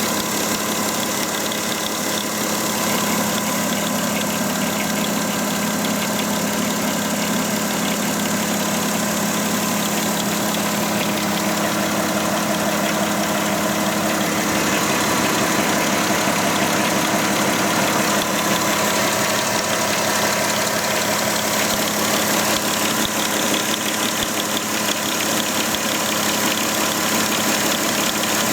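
Volkswagen Touareg engine idling steadily with a strange extra noise mixed into its running, which the owner cannot trace to any part of the engine.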